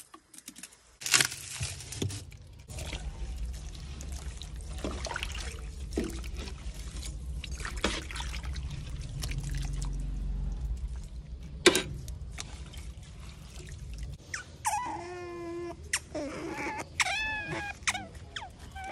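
Liquid poured and sloshed in a metal cooking pot, with scattered clicks of the pot and utensils. About fourteen seconds in, an animal starts whining: several short, high, wavering cries.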